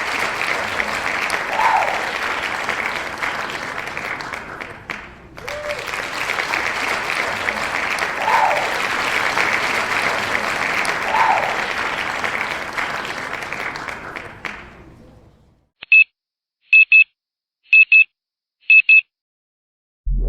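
Large crowd applauding. It breaks off and restarts about five seconds in, then fades out about two-thirds of the way through. Four short electronic beeps follow, about a second apart.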